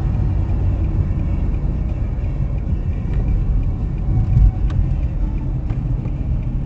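Car driving, heard from inside the cabin: a steady low rumble of tyre and engine noise, with a few faint ticks and a brief swell of low rumble near the middle.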